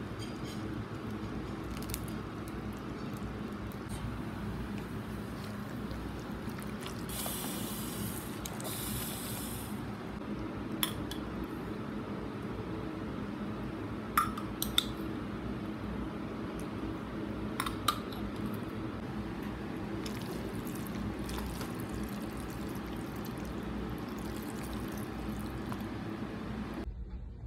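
Thick cream sauce and spaghetti stirred in a metal pot with a wooden spoon: wet squelching and sloshing over a steady background hum, with a few sharp clicks in the middle.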